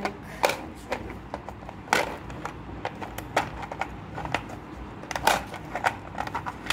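A hard white plastic accessory box being handled and worked open, with a run of sharp plastic clicks and knocks, about five loud ones spread out with smaller taps between.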